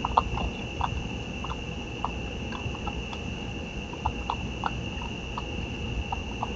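Raccoon eating dry food from a ceramic dish, irregular crunching clicks about two or three a second. A steady high-pitched whine runs underneath.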